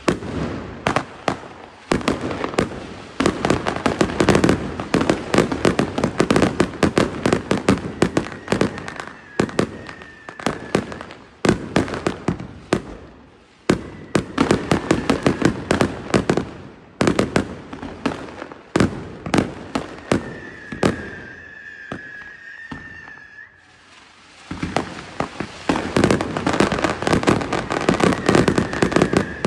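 A loud, dense run of sharp cracks and pops, many a second, thinning out for a few seconds around the middle and building again toward the end, with a high wavering tone heard over it at times.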